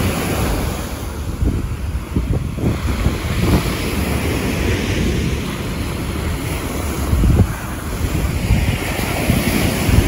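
Small sea waves breaking and washing up a sandy shore, with wind rumbling on the microphone. The hiss of the surf swells twice, a few seconds in and again near the end.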